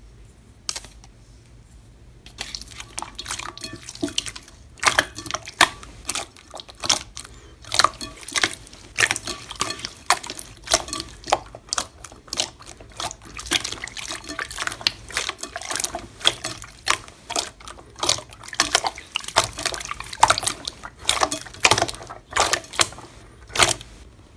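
Slime being squished and worked, making a run of irregular wet clicks and pops that starts about two seconds in.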